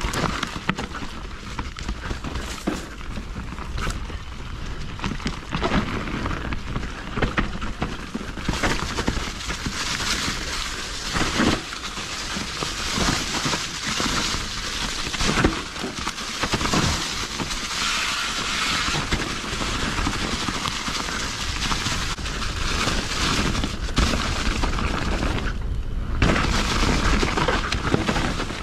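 Mountain bike on a rough trail: wind buffeting the microphone with a low rumble and a steady rushing hiss, over which come frequent knocks and rattles from the bike. It cuts off suddenly at the very end.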